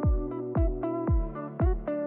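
Upbeat electronic background music with a steady kick-drum beat about twice a second under synth and plucked notes.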